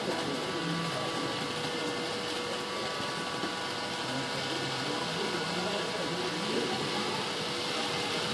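Steady whirring hum of HO-scale model trains running on a large layout, with faint voices in the background.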